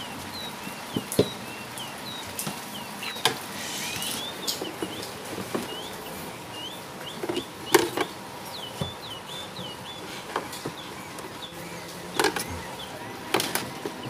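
A hand screwdriver driving screws up into the plastic base of a twin-tub washing machine, with scattered sharp clicks and knocks of the tool and screws on the plastic. Faint short high chirps come and go in the background.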